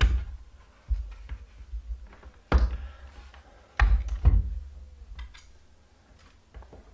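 Handling knocks from a small metal Cisco Firepower 1010 firewall being turned over and set down on a wooden desk: a handful of sharp knocks and thuds, the loudest about two and a half and four seconds in.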